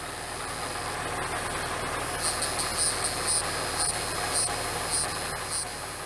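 An engine running steadily, with a string of short high chirps over it from about two seconds in.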